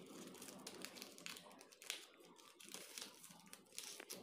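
Faint, irregular crinkling of clear plastic wrap as hands handle a wrapped parcel and cut it open with scissors.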